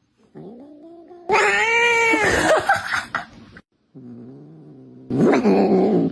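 Domestic cat yowling and growling in an engine-like way. A quiet growl rises in pitch into a loud, drawn-out yowl about a second in. A low steady growl follows, then a loud harsh burst near the end.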